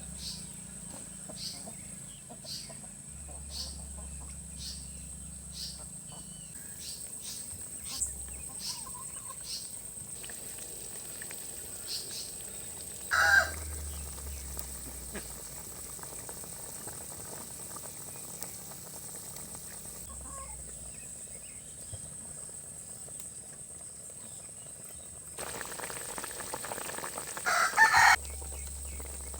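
A rooster crowing, once briefly about halfway through and again, louder, near the end.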